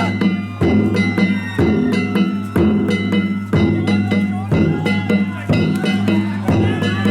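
Music with a drum-led beat, strokes about once a second over a steady low drone, with pitched notes between the strokes.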